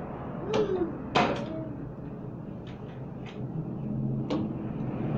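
Small plastic toy pieces knocking and clattering in a plastic compartment tray on a wooden table: a handful of sharp clicks, the loudest about a second in.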